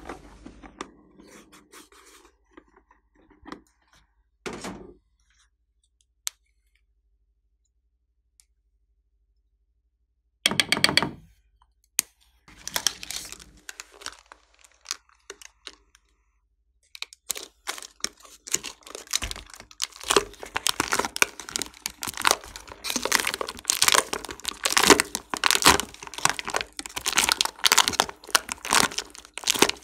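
Slime being worked and mixed by hand, with sticky crackling and popping sounds. A few scattered crackles come first, then a pause, and in the second half there is dense, rapid crackling.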